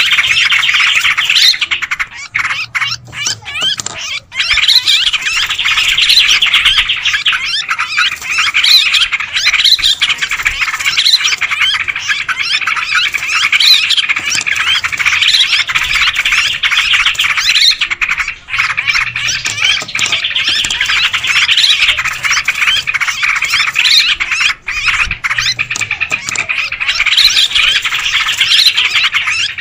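Yellow-vented bulbuls (trucukan) calling noisily together: a loud, continuous jumble of overlapping chirps and chattering notes from several birds at once, with a short lull a couple of seconds in. It is a lure call used to draw in wild bulbuls.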